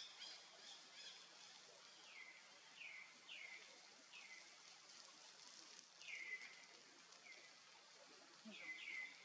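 Faint, repeated high chirping calls, about eight of them, each sweeping quickly downward in pitch, over a steady faint hiss.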